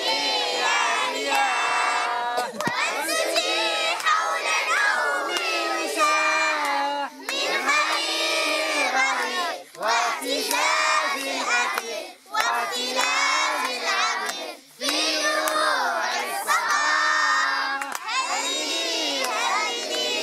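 A large group of children chanting a song together loudly, in phrases of a few seconds with short breaks between them.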